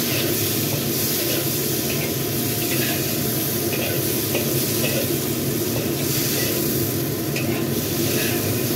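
Cut long beans and tomato sizzling in a hot wok while a metal spatula stirs them, with short scrapes against the pan about every second, over a steady low hum.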